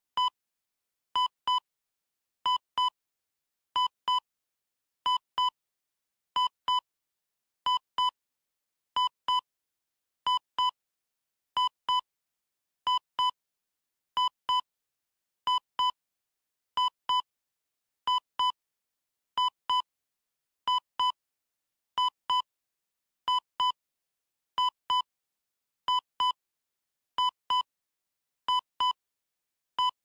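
Heart monitor beeping: pairs of short electronic beeps, one pair about every 1.3 seconds, in a steady, even rhythm with silence between.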